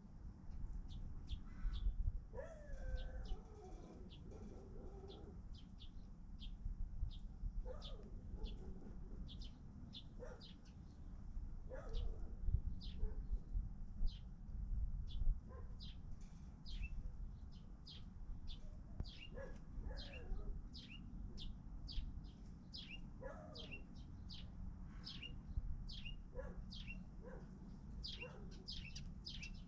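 Chickens calling: a steady run of short, high, falling chirps, about two a second, with lower clucking calls now and then. A low rumble runs underneath.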